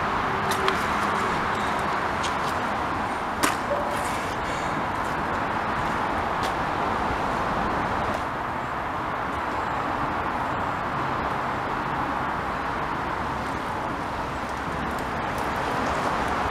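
Steady noise of road traffic crossing the road bridge overhead, with a sharp click about three and a half seconds in.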